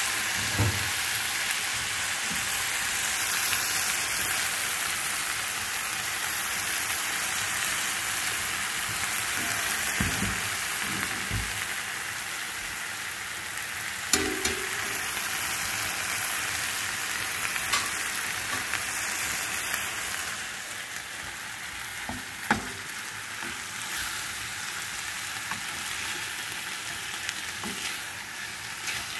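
Chicken leg quarters sizzling as they fry in a pan: a steady hiss with a few short knocks now and then.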